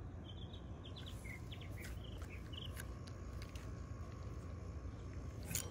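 Faint outdoor background with scattered short, high chirps in the first few seconds and a few light clicks.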